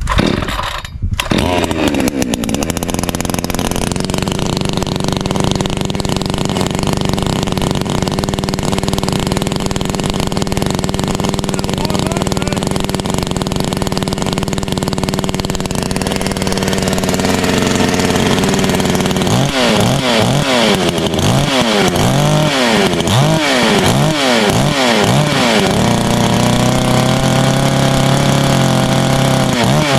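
Two-stroke gas chainsaw started from cold, catching at the very beginning and running steadily. From a little over halfway it is revved up and down repeatedly, then held at a steadier, higher speed near the end.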